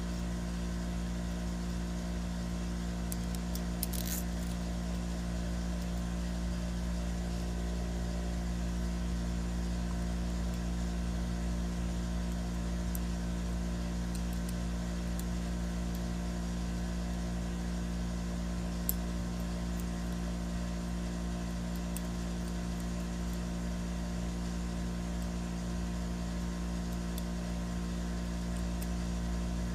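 Steady low machine hum made of several fixed tones, with a few faint clicks of metal parts being handled.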